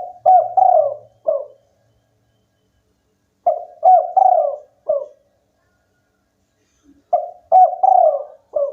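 Spotted dove cooing: a four-note phrase, the third note the longest, repeated three times about three and a half seconds apart.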